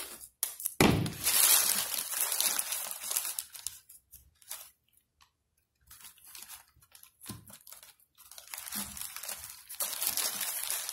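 Crumpled newspaper crinkling and crunching as it is pressed around a plastic bottle, with green painter's tape pulled and ripped from its roll. The rustling comes in bursts, with a pause of about two seconds in the middle.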